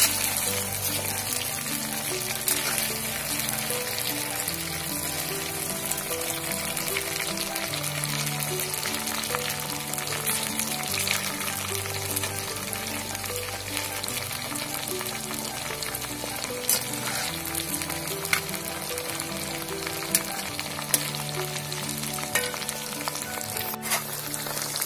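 Marinated chicken pieces deep-frying in hot oil in an iron kadai: a steady sizzle with a few sharp clicks of the slotted spatula against the pan. Soft background music with held notes plays underneath.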